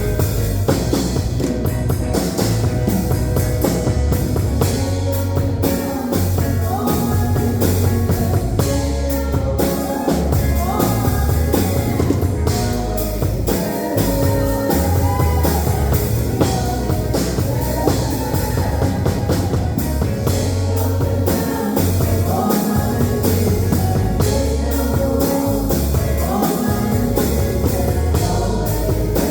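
Band music with a drum kit, guitar and a singing voice, playing steadily throughout.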